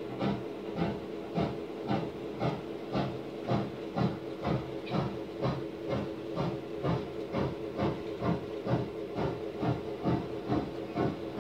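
Steam locomotive chuffing steadily at about two beats a second over a steady hum, as played by a model railroad's ambient sound system.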